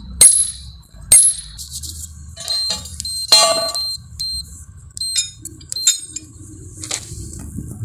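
Two sharp metallic clinks from a steel drive pin and extraction tool on the scraper plate, then a run of short, high beeps as keys are pressed on a Troxler 3430 nuclear density gauge's keypad.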